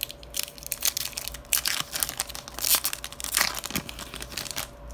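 Foil wrappers of trading-card packs crinkling and tearing as they are handled and ripped open by hand, in an irregular run of sharp crackles.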